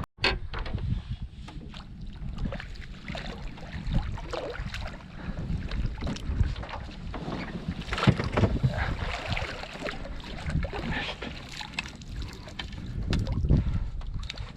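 Wind buffeting the microphone on a kayak, an uneven low rumble full of small crackles, gusting louder about eight seconds in and again near the end.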